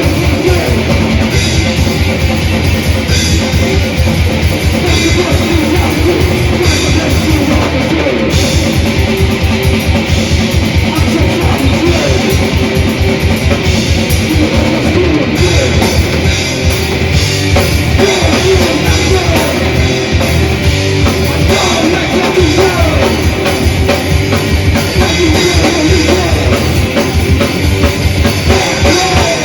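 Death/thrash metal band playing live: very fast, dense drumming under distorted electric guitars, loud and unbroken.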